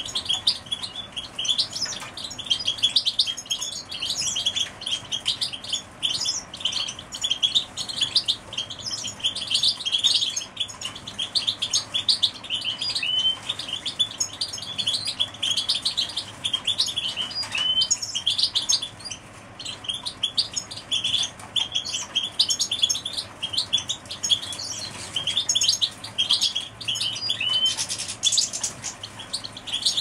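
Several domestic canaries chirping and singing together in a cage: a steady stream of quick, high chirps and trills, with a few short rising notes now and then.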